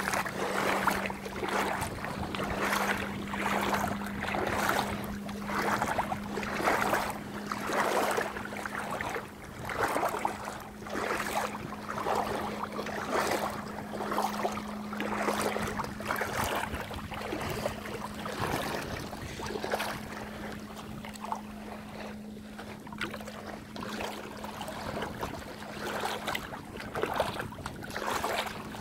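Bare feet wading through shallow water over sand, splashing and swishing with each step, about one step a second; the splashes grow softer in the last third. A steady low hum runs underneath.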